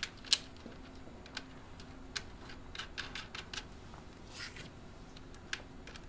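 Small metal nuts and screws clicking against each other and against the acrylic plates as nuts are picked from a pile and spun onto screws by hand. Scattered light clicks at an uneven pace, the sharpest about a third of a second in.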